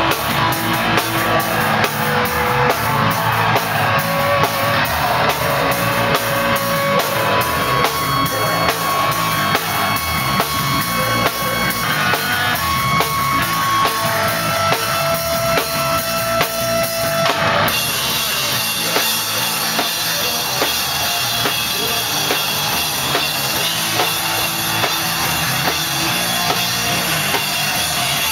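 A raw, noisy black-metal hardcore band playing live, heard from right beside the drum kit: fast, driving drums under distorted guitar. About two-thirds of the way through, the rhythm of regular hits gives way to a steadier, more even wall of noise.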